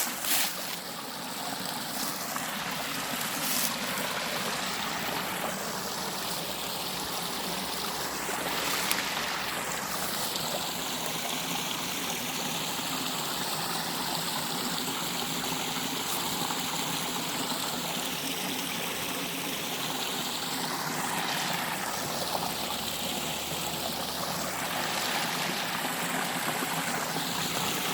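A stream of water running steadily, a constant rushing whose tone slowly sweeps up and down.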